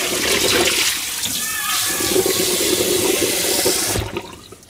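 Kitchen tap running into a hammered metal saucepan as it is rinsed out, the stream drumming and splashing in the pan. The water cuts off about four seconds in when the tap is shut.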